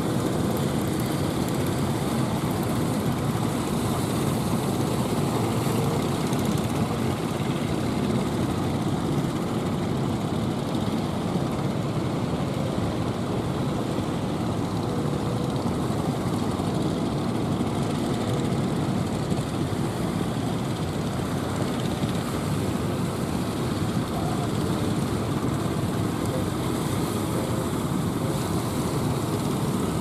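A steady low rumble of strong wind and rough surf, mixed with the engines of fishing boats running out through the waves.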